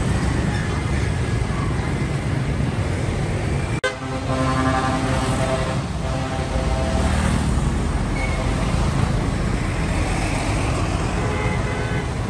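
Road traffic with container trucks and motorbikes passing: a steady low rumble of heavy engines and tyres. About four seconds in, after a brief break, a vehicle horn sounds for two to three seconds.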